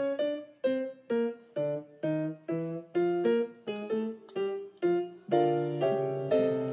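Background piano music: a steady melody of separate notes, about two or three a second, each struck and fading.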